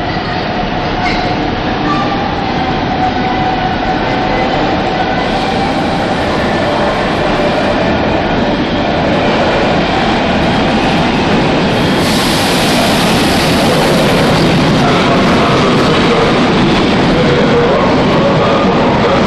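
Hamburg S-Bahn electric train pulling into an underground station. Its rumble and wheel noise echo off the platform and grow steadily louder as it approaches and its cars run past, with more hiss and squeal from the wheels from about twelve seconds in.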